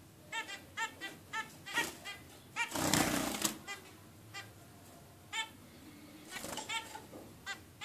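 Zebra finches calling from the nest: short nasal calls, each a quick rise and fall in pitch, coming several a second in two runs, with a loud burst of rustling and wing-fluttering about three seconds in.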